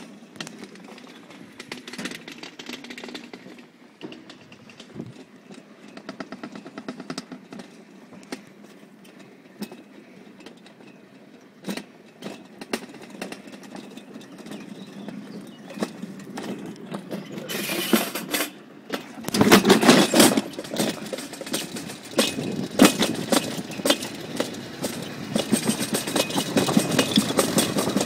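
Summer bobsled running down a stainless-steel trough track: its wheels rattle and tick along the steel, faint at first, then about two-thirds of the way in the clatter turns much louder and denser as the sled gathers speed.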